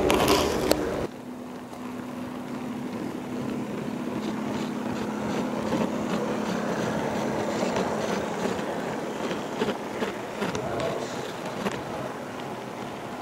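HO-scale model train running, heard from a camera car riding on the track: a steady rolling rumble with a low hum and scattered light clicks. A horn blast from the model locomotive cuts off about a second in.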